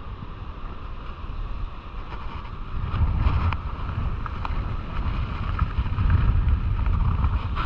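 Wind buffeting the microphone in a low, gusty rumble that grows stronger about three seconds in, over the hiss of surf washing up the beach.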